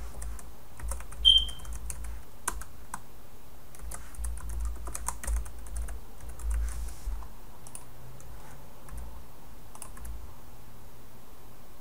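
Computer keyboard typing, irregular runs of keystrokes that thin out after about seven seconds, with one short high tone about a second in.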